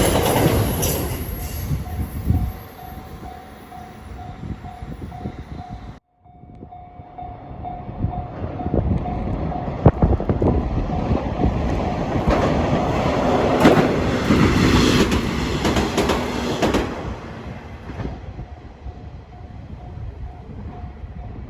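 Level crossing warning bell ringing in a steady pulsing beat while trains pass. The tail of a 521 series electric train fades out, and the sound cuts off sharply about six seconds in. Then a two-car KiHa 120 diesel railcar approaches and passes over the crossing, its wheels clicking over the rail joints, and fades away near the end.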